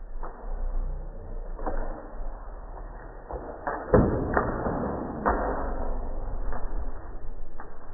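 Small dogs and a rabbit scrambling and scuffling on a hardwood floor: scattered knocks and clicks, with the loudest thump about four seconds in.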